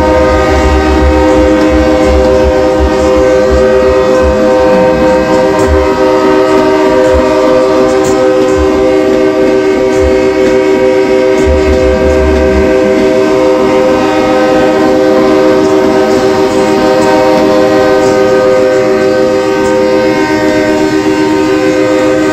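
Truck air horns blowing one steady chord of several notes without a break, loud and unchanging.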